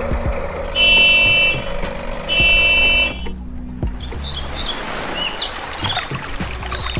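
Two long honks of a vehicle horn, each under a second, in the first half. After that, short high bird chirps come and go.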